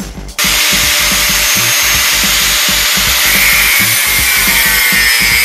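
Angle grinder cutting steel, a dense steady grinding hiss with a faint high whine that starts about half a second in, over background music with a steady beat.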